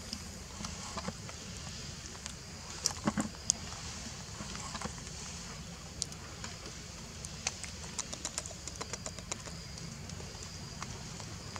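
Outdoor background noise: a steady low rumble and high hiss, with scattered short clicks and ticks, a few sharp ones about three seconds in and a quick run of ticks in the second half.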